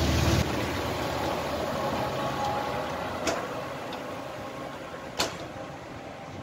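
Geismar overhead-wire maintenance vehicle's diesel engine running as it passes close and pulls away; the deep engine drone drops off sharply about half a second in, leaving a fading running noise. Two sharp clicks, about two seconds apart, cut through it.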